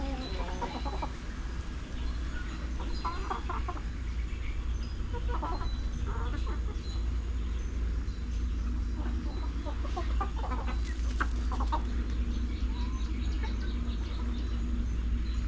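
Chickens clucking on and off in short clusters of calls, over a steady low rumble.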